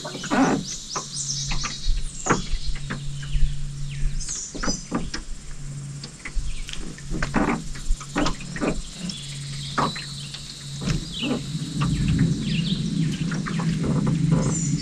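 Birds chirping in short, high calls over frequent sharp clicks and knocks. A low hum comes and goes several times.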